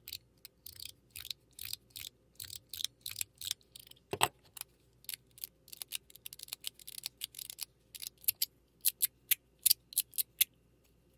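42cosmo mechanical fidget slider worked back and forth by hand, its parts snapping into place with sharp clicks about two to three a second, with one heavier clack about four seconds in.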